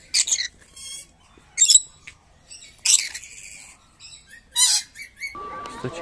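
Rainbow lorikeet giving four harsh, shrill screeches, one about every one and a half seconds.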